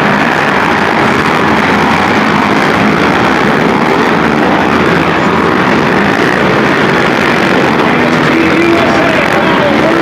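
A pack of racing quad ATVs with their engines running hard together, a loud, steady, dense engine noise with no single engine standing out.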